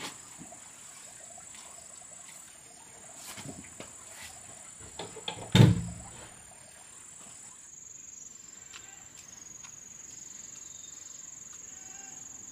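Steady high-pitched insect buzz. A few light clicks come before one loud, sharp knock about halfway through.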